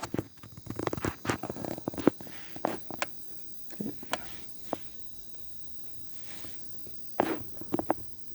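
Irregular light clicks and taps in scattered clusters, with quiet gaps between, like a small hard object being handled.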